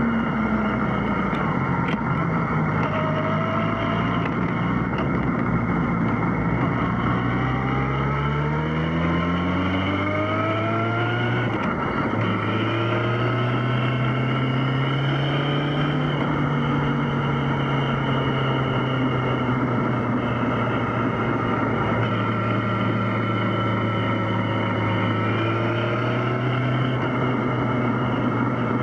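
Yamaha XJ6's 600 cc inline-four engine running under way with wind rush. The engine note climbs steadily for about the first ten seconds, breaks briefly around twelve seconds in, then holds fairly level at cruising revs.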